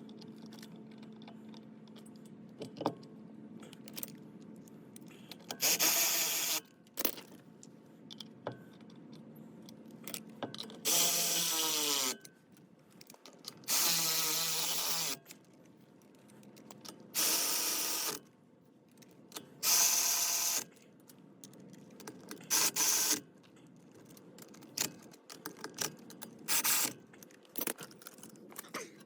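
A power tool run in repeated short bursts of about a second, several of them falling in pitch as it spins down, with small metallic clinks of tools and parts in between.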